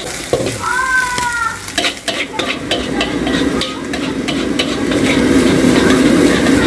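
Metal spatula scraping and clacking against a wok as fried rice is stir-fried, with sizzling underneath. A brief high tone sounds about a second in, and a low steady rumble grows louder over the last couple of seconds.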